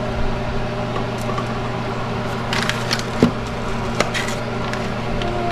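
Kitchen clatter: scattered light knocks and clicks of cookware and utensils, with one sharper knock about three seconds in, over a steady low machine hum.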